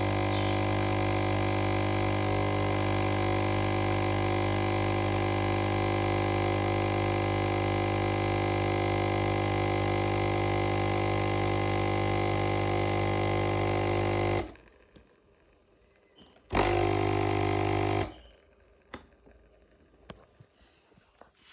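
Vibratory pump of a cheap espresso machine buzzing steadily while pulling a shot; it cuts off about two-thirds of the way in, runs again briefly for about a second and a half, then stops, leaving a few faint ticks.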